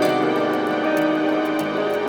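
Background music: sustained, ambient-sounding instrumental tones.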